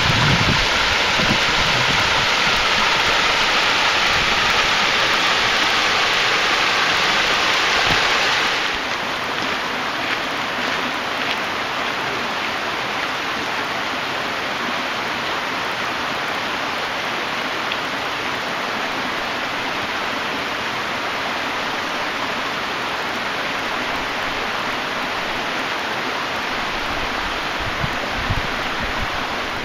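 Steady rushing of a creek's running water. It is louder for the first eight seconds or so, then drops to a lower, even level.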